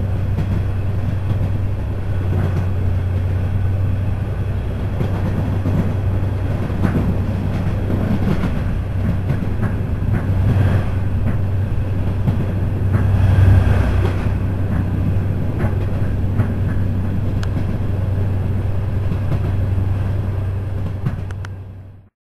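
Commuter train running at speed, heard from inside a carriage: a steady low hum with rumbling rail noise. It grows louder for a few seconds around the middle as another train passes on the next track, then the sound cuts off just before the end.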